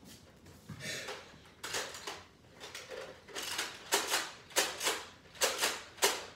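A rapid series of sharp clicks and knocks, about two a second, louder in the second half.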